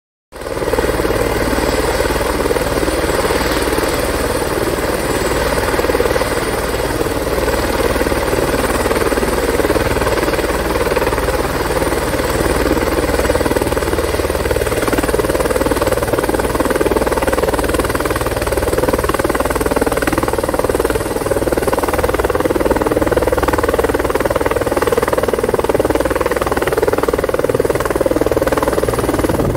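Helicopter on the ground with its engine running and main rotor turning: a loud, steady running sound that starts abruptly about half a second in.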